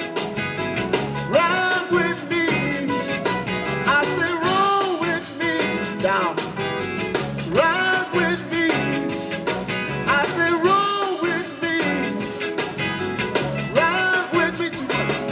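Zydeco band playing live on a loudspeaker PA, with accordion, electric guitar, keyboard and drums at a steady fast beat.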